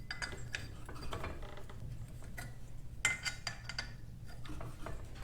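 Faint metal clicks and ticks of a hand tool tightening the set screws on a garage door's cable drum, with a busier run of clicks about three seconds in.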